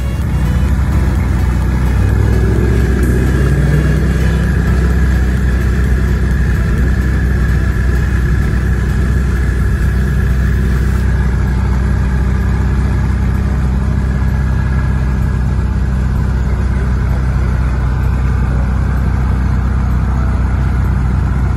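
Ferrari 488's twin-turbo V8 idling steadily with a deep, even rumble, rising slightly in pitch for a moment a few seconds in.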